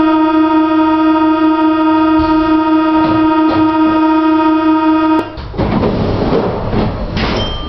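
Paris Métro train's door-closing warning buzzer: a steady, loud buzzing tone that cuts off abruptly about five seconds in. The rumble of the train getting under way follows.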